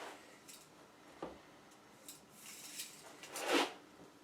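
Sheet-metal heat duct pipe being handled: a light knock about a second in, then a short, louder scrape a little after three seconds.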